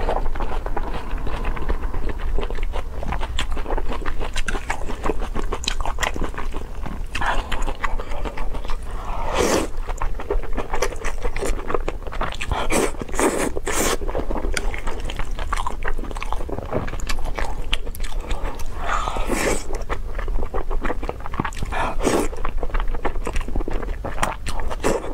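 Close-miked eating of saucy spicy noodles: wet chewing and clicking mouth sounds throughout, broken by several louder slurps as noodles are drawn into the mouth. A faint low hum lies underneath.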